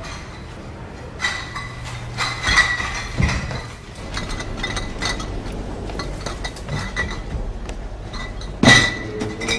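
Glass milk bottles clinking in a milk crate as it is carried, a scatter of sharp ringing clinks with the loudest near the end.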